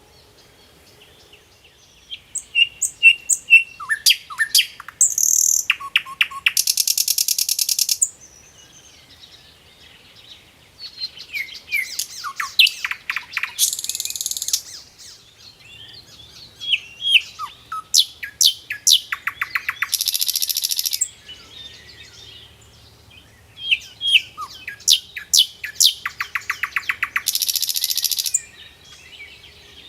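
A songbird singing in four repeated phrases of quick chirps and sweeping notes, each phrase ending in a harsh, buzzy trill, with short pauses between.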